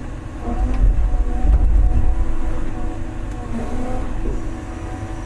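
Large excavator's diesel engine running under load, a deep rumble with a steady pitched drone on top. It is loudest for the first couple of seconds, then settles to a steadier level.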